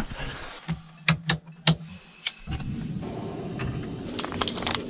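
A few clicks and knocks, then about two and a half seconds in a steady low rushing sound starts: a portable gas stove burner running under a frying pan of water.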